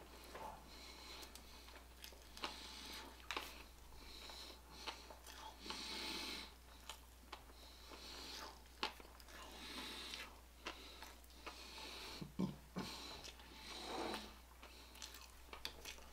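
A man breathing heavily and noisily through nose and mouth, a slow breath every second or two, with small mouth clicks. He is stuffed after speed-eating and is straining to bring up a burp that won't come.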